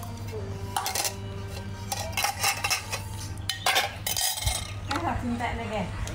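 Cutlery and dishes clinking and clattering in a series of sharp knocks, as when eating from a plate.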